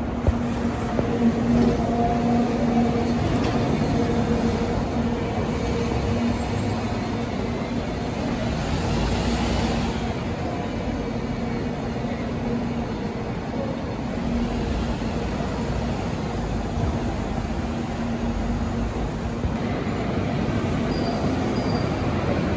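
Diesel city buses running through a bus interchange: a steady engine hum over traffic noise.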